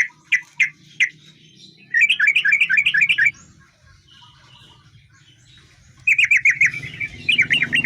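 Yellow-vented bulbul (trucukan) singing: a few separate sharp chirps, then quick bubbling runs of notes about two seconds in and again from about six seconds in.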